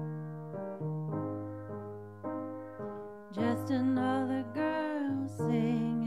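Piano playing slow, gently struck chords that ring out and fade. About three seconds in, a woman's voice starts singing over it.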